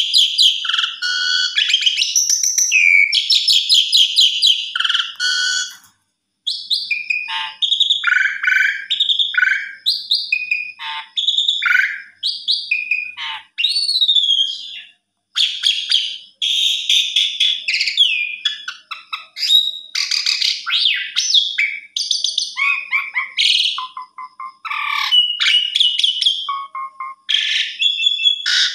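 A jalak suren (Javan pied starling) singing a long, varied song: loud whistles that rise and fall, mixed with rapid chattering notes, in phrases broken by brief pauses.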